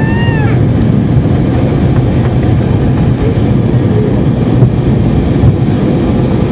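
Airliner cabin noise during the climb just after takeoff: the jet engines' loud, steady rumble and rush. A short high-pitched vocal sound rises and falls right at the start.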